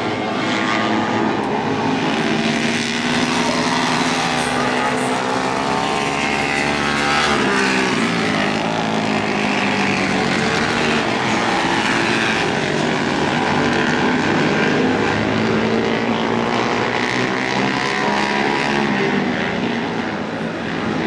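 Flat-track racing motorcycles running hard around a dirt oval, the engine note rising and falling as the riders accelerate and back off through the turns.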